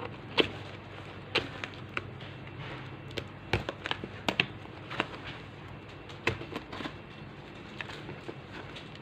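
Hands handling a boxed replacement phone touchscreen and its packaging: irregular light clicks and taps, a dozen or so, over a low steady hum.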